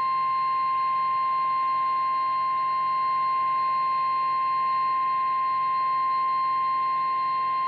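NOAA Weather Radio warning alarm tone: one steady, unbroken 1050 Hz tone over a faint hiss, the signal that a warning broadcast follows.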